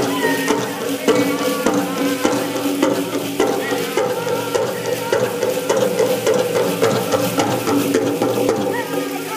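A pow-wow drum group singing over a steady, even drumbeat, a little under two beats a second, with the metal cones of jingle dresses rattling along.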